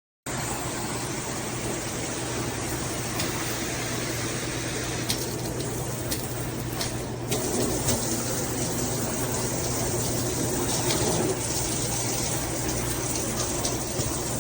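Water spraying from a fixed high-pressure shower head: a steady rushing hiss that starts abruptly, with a low steady hum underneath.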